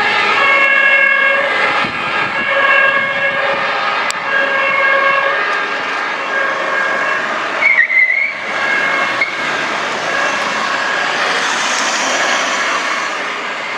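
Pneumatic two-tone horn (Martinshorn) of a Mercedes-Benz Econic aerial platform fire truck sounding continuously, alternating between two pitches. The tones break off briefly about eight seconds in, and a rushing noise swells under them near the end.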